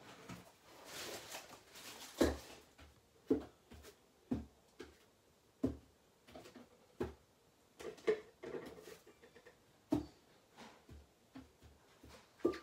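Objects being handled and set down: a series of about a dozen light, irregular knocks and taps, the sharpest about two seconds in and just before the end, with a soft rustle at the start.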